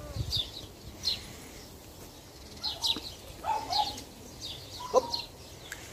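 Small birds chirping: a run of short, high, downward-sliding chirps repeating every second or so, with a few lower, shorter calls a few seconds in.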